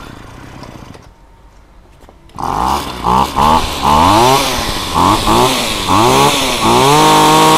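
A 26cc two-stroke brush cutter engine is test-started, catching about two and a half seconds in. It is then revved repeatedly with the throttle, its pitch rising and falling several times, and the last rev is held high near the end.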